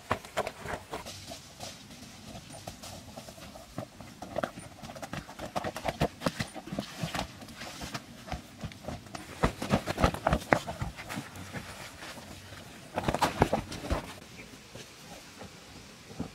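Irregular knocks, wet thuds and footsteps of hand work with mud and a bamboo litter, as wet earth is carried and tipped out; the thuds come thickest about ten seconds in and again in a dense burst around thirteen seconds in.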